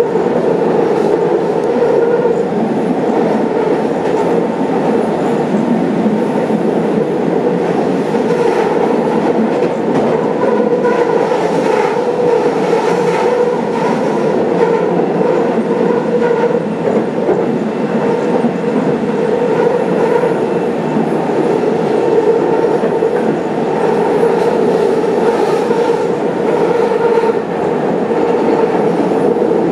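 Tram running along the track: a steady noise of wheels on rails, with a few faint clicks here and there.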